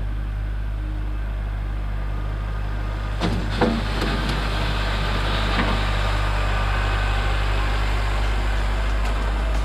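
A vehicle engine running steadily, with a couple of sharp knocks about three seconds in, after which the sound grows somewhat fuller.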